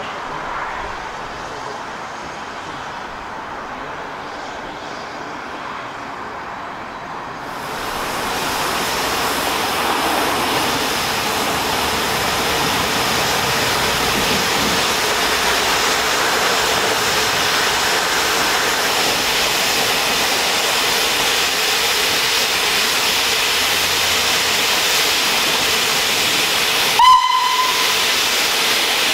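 Steam tank locomotive standing with its safety valves blowing off in a loud, steady hiss that comes in suddenly about a quarter of the way in. Near the end the whistle gives one short toot.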